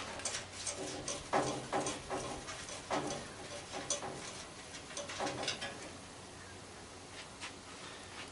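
Small metal tools clinking and clattering as they are handled, a string of sharp clicks that thins out and stops after about five seconds. A bird cooing can be heard behind it.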